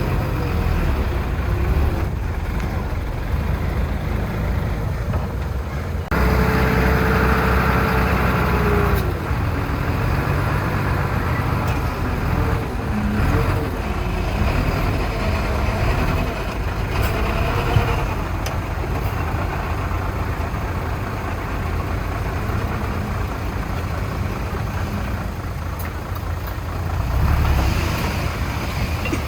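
Diesel engines of heavy earthmoving machines (dump trucks and a bulldozer) running steadily, with an abrupt jump in level about six seconds in.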